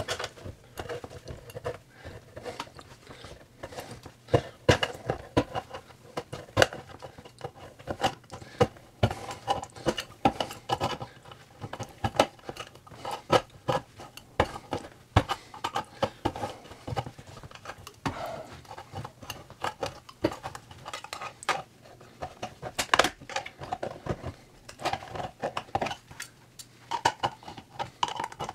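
Handheld hole punch biting into a tin can's steel lid around its rim, a fast, irregular run of sharp metal clicks with scraping of tin as the lid is cut open. The sound is sped up to double speed.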